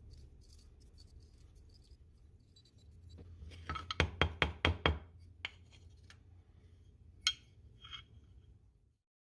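A quick run of about six light, sharp clinks, then a few scattered clicks, from small hard parts being handled, over a steady low hum; the sound cuts out near the end.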